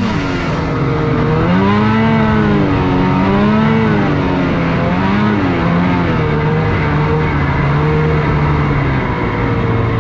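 Snowmobile engine running under changing throttle, its pitch rising and falling several times in the first half, then holding steadier.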